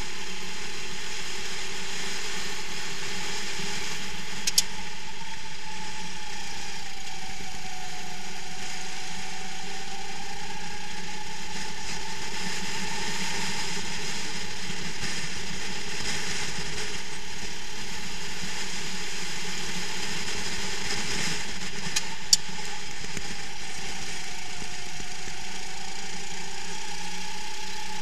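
Go-kart engine heard from a camera mounted on the kart at racing speed, a steady buzzing drone whose pitch sags and picks up again twice. Two sharp knocks cut through, about four and a half seconds in and again about twenty-two seconds in.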